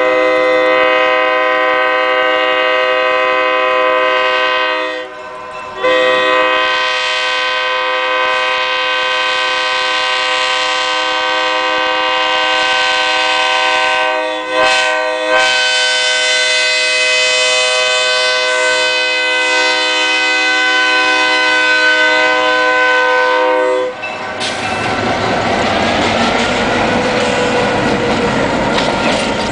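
Arkansas Midland GP10 locomotive's horn sounding a loud multi-note chord in long blasts, broken briefly about five and fifteen seconds in. About 24 seconds in the horn stops, leaving the rumble and clatter of the train rolling past.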